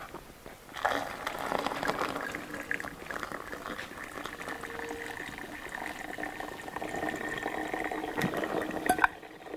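Hot coffee being strained and poured, a steady run and bubble of hot liquid that starts about a second in and stops just before the end with a click.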